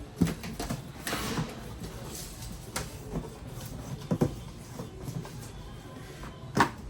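Handling noise from unboxing: a handful of irregular knocks and short rustles as the speaker's box and packaging are handled, with one sharper knock near the end.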